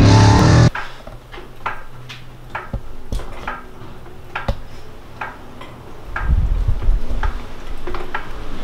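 Car engine running, heard inside the cabin, cut off abruptly under a second in; then scattered light clicks, clinks and knocks with low rumbling bumps from a handheld camera being moved about.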